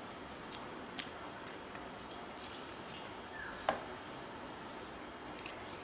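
Fingers mixing rice and curry on a steel plate by hand: scattered small clicks and taps on the metal, with one sharper click a little past halfway.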